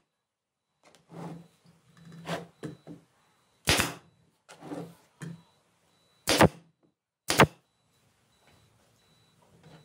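Pneumatic brad nailer firing brads into a wooden frame strip: three sharp shots, about four, six and a half and seven and a half seconds in. Softer knocks between them.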